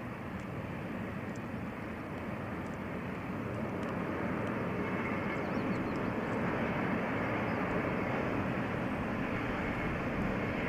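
Freight train hauled by an electric locomotive passing at a distance: a steady rumble that grows a little louder about four seconds in.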